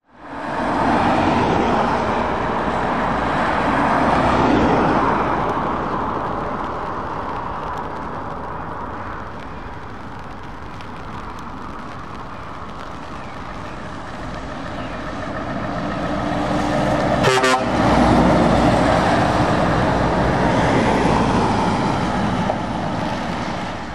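Scania trucks driving past on a wet road, engines running and tyres hissing on the wet surface, the sound swelling as each one comes by. About 17 seconds in there is a short horn toot.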